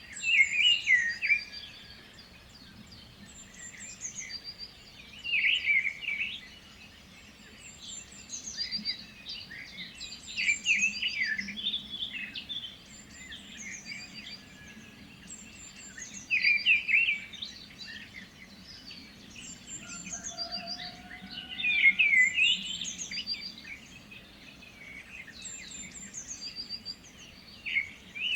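Several birds singing: loud warbled song phrases come every few seconds, over repeated high chirps from another bird and a faint steady background hum.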